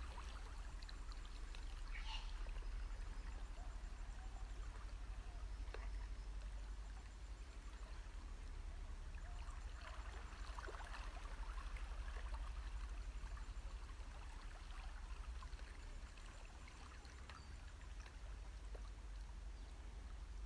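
Small waves lapping and trickling against shoreline rocks, a soft patter of little splashes over a steady low rumble.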